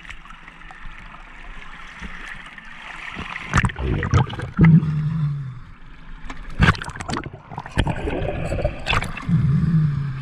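Water sloshing and splashing against a boat's hull as a diver climbs a stainless swim ladder out of the sea. Several sharp knocks of hands and gear against the ladder and hull come in the second half.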